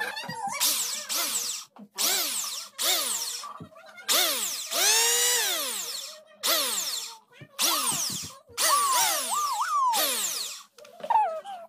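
Electric hand planer, freshly reassembled after repair, switched on in about eight short bursts. Each time, the motor and cutter drum whine up in pitch and then fall away as they coast down; one burst about 4 s in runs longer.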